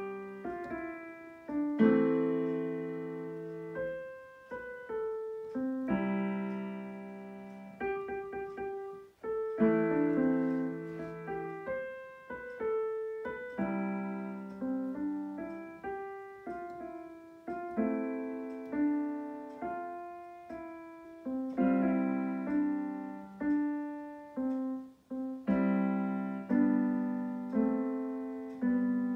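Roland digital piano played with both hands: chords struck every second or two and left to ring and fade, with a melody on top.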